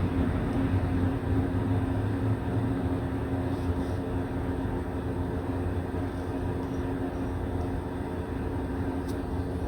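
Engine idling steadily while warming up.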